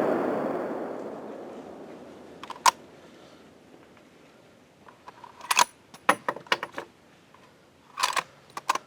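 The rolling echo of a .30-06 rifle shot dying away over about two seconds, followed by scattered sharp metallic clicks and knocks: one, then two short clusters near the middle and near the end.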